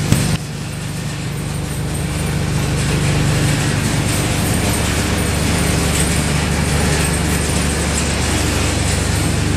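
Gas burners firing a soda kiln: a steady rushing flame noise over a low hum, with a brief sharp jump in level about half a second in.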